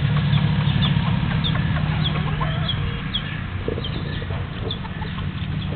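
Domestic chickens clucking, with many short high chirps scattered through. Under them a low vehicle rumble fades away about three seconds in.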